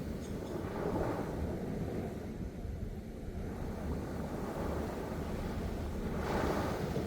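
Sea waves washing in, swelling louder twice, about a second in and again near the end, over a steady low rumble of wind on the microphone.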